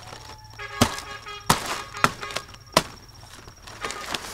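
A few sharp knocks or chops, four in about two seconds, the first ones followed by a brief ringing tone.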